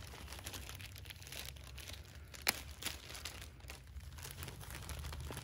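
Clear plastic wrapping crinkling and crackling as gloved hands pull it off an amplifier, with a sharper crackle about two and a half seconds in.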